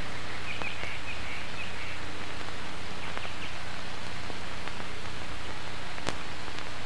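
Steady hiss and low hum of an old film soundtrack, with scattered faint clicks and one sharp click about six seconds in. A few faint high chirps are heard about half a second to a second and a half in.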